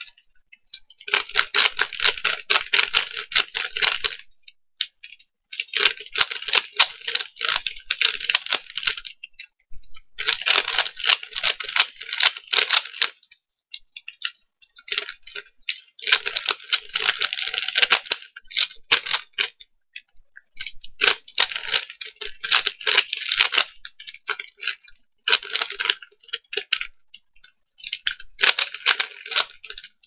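Plastic Ghosthand 3x3 Rubik's cube being turned quickly by hand: fast runs of clicking and rattling as the layers turn, in bursts of two to three seconds with short pauses between.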